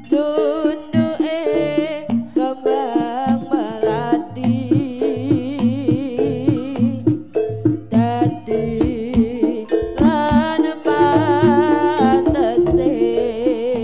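Live jaranan (East Javanese kuda lumping) ensemble music: a wavering, ornamented melody with quick vibrato over steady drum strokes and repeated low notes, playing without a break.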